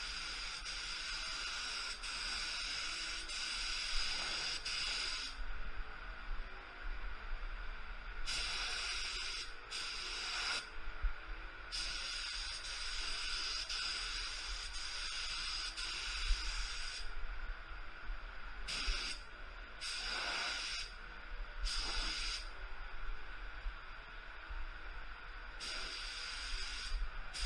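HVLP gravity-feed spray gun (ITALCO Shine 1) hissing as air atomises paint, switching on and off with the trigger. It runs as passes of a few seconds each, with short bursts and brief pauses between them.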